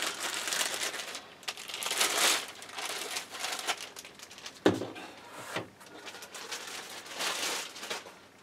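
Clear plastic bag crinkling and rustling as an aluminium light stand is pulled out of it, with a single sharp knock about halfway through and more crinkling near the end.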